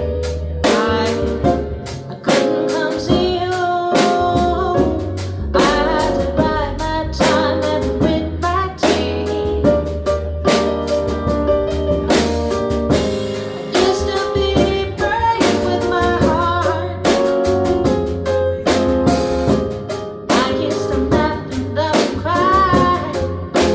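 Live jazz trio playing a song: a singer's voice over drum kit with steady cymbal and drum strokes and a low bass line underneath.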